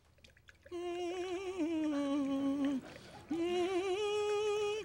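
A person humming two long held notes with a wavering pitch: the first begins about a second in and sinks lower, and after a short break the second sits a little higher.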